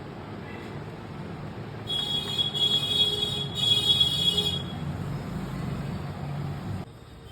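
Noisy hum and hiss from an open Roland E-09 keyboard's amplifier and speakers, the noise fault under repair, with a high-pitched whine coming in three spells in the middle. The noise drops off suddenly near the end.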